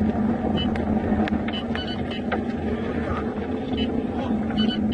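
Steady drone of a car driving at highway speed, heard from inside the cabin: road and engine noise with a low hum, and a few faint, short, high chirps scattered through it.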